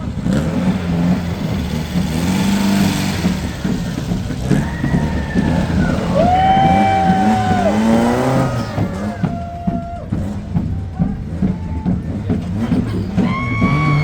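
Motor vehicle engines running and revving, with brief rising and falling pitched tones about six to eight seconds in.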